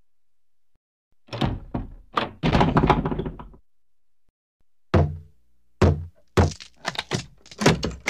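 Heavy banging on a door: a burst of several hard thuds about a second in, a pause, then single blows that quicken into a rapid run of bangs near the end.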